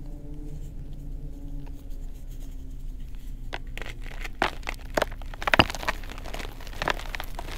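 Blocks of reformed gym chalk squeezed and crushed by hand, crumbling with irregular sharp crunches and crackles that start about halfway through, the loudest a little before the end.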